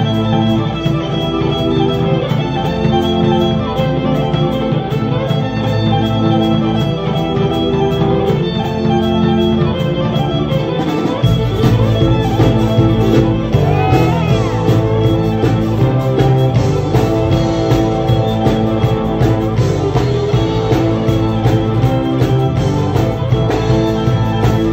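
Live band music with a violin playing the lead over drums, bass and electric guitar; the bass and drums get heavier about eleven seconds in.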